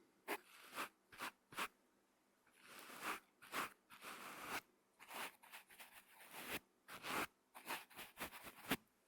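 Brush bristles swept across a microphone, a run of irregular scratchy strokes: some quick flicks, some longer sweeps.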